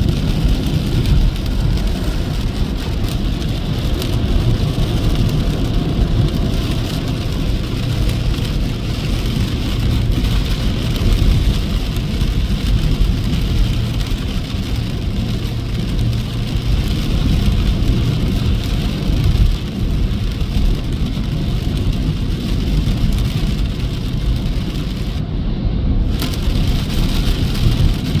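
Steady road noise of a car at freeway speed in the rain: a low tyre-and-engine rumble under the hiss of rain and wet road.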